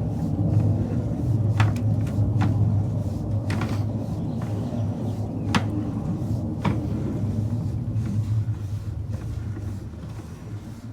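Sewer inspection camera's push cable being pulled back through the line: a steady low hum with scattered sharp clicks and knocks, easing off near the end.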